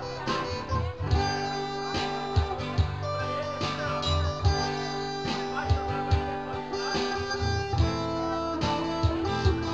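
Live duo music: amplified guitars playing an instrumental passage with strummed chords over a steady beat, no singing.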